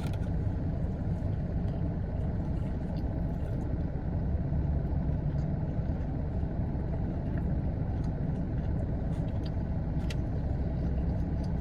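Steady low rumble of an idling car heard from inside the cabin, with a few faint clicks over it, the clearest about ten seconds in.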